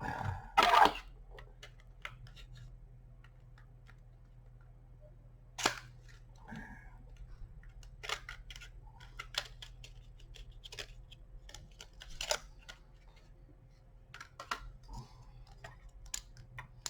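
Sharp clicks and small handling noises as a DDR3 laptop memory stick is unclipped and pulled from its slot. The loudest cluster of clicks comes about half a second in, with single clicks scattered through the rest.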